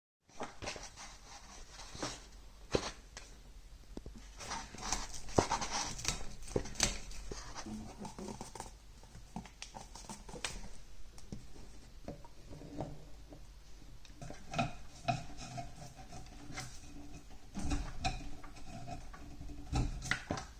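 Hands handling small hard objects and parts on a work surface: irregular clicks, taps and light rubbing, with no steady rhythm.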